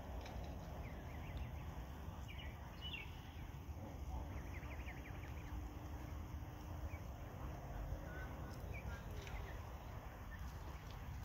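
Canada goose goslings peeping in short, high chirps now and then, with a small cluster of peeps a few seconds in, over a steady low outdoor rumble.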